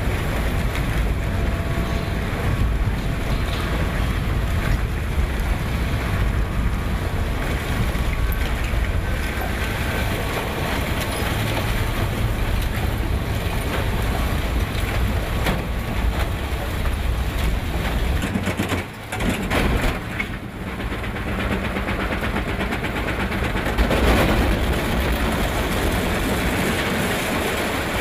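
Heavy industrial shredder running: a steady, loud low rumble with dense mechanical noise, dropping off briefly about two-thirds of the way through and swelling again a few seconds later.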